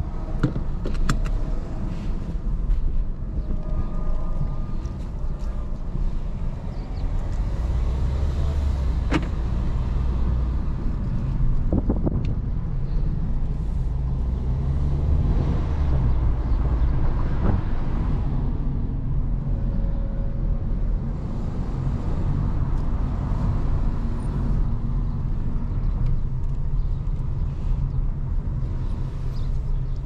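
Inside the cabin of a 2022 Audi A3 35 TFSI on the move: its 1.5-litre turbocharged four-cylinder engine and the tyres give a steady low rumble, with a few short clicks along the way.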